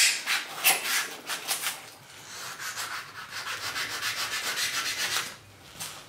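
Knife blade cutting and scraping through a block of foam, carving a taxidermy bird body to shape. There is a quick series of rasping strokes, then a steadier run of scraping that stops about five seconds in.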